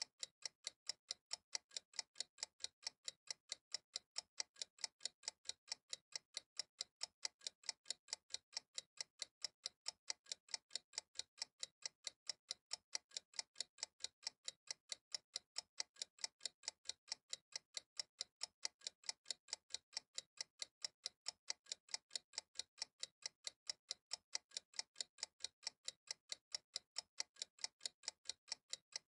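Clock-style ticking of a countdown timer: sharp, even ticks in an unbroken steady rhythm.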